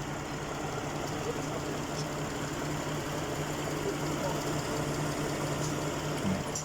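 Lexus RX330's 3.3-litre V6 idling steadily, its engine running again after the burnt wire harness and engine computer were replaced.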